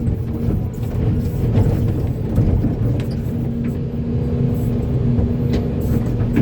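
Heavy diesel engine of a large excavator running steadily: a loud low rumble with a constant hum and a few faint clicks.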